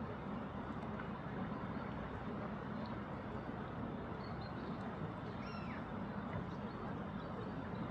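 Steady low outdoor rumble, with a few faint, short, high chirps and one brief sliding call about halfway through.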